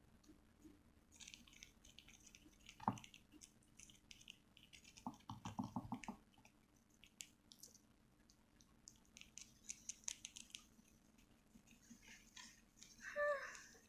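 Faint crinkling and rustling of plastic sauce sachets being torn and squeezed into an instant-noodle cup, with a sharp click about three seconds in and a short run of rapid taps around five to six seconds. A brief pitched squeak sounds near the end.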